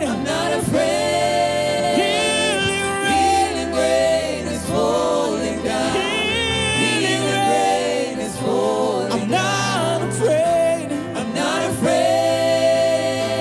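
Gospel worship song: several voices, men and women, sing into microphones in harmony over sustained low chords that change every few seconds.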